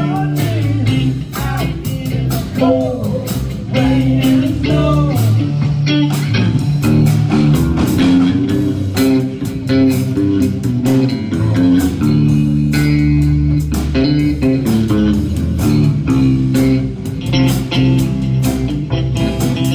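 Live band playing an instrumental passage: electric bass and guitars over drums keeping a steady beat, with no vocals.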